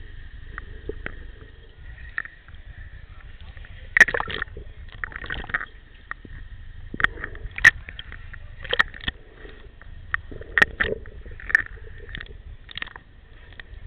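Pool water heard through an underwater camera: a low, steady rumble with irregular sharp clicks and short knocks.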